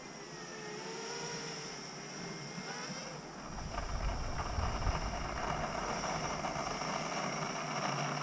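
FPV racing quad's 2205 2600KV brushless motors whirring in flight, the pitch wavering up and down with throttle. From about three and a half seconds in, a louder rushing noise takes over.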